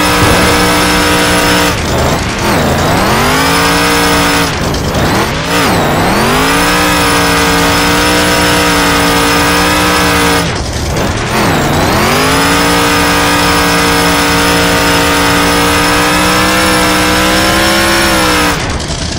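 A car engine held at high revs. The revs drop sharply and climb back three times, about 2, 5 and 11 seconds in, then fall away near the end.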